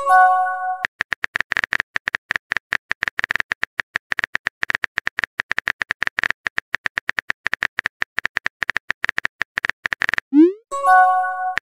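Texting-app sound effects: a short bright chime right at the start, then rapid keyboard-typing clicks for about nine seconds, then a quick rising swoosh and the same chime again near the end as the next message is sent.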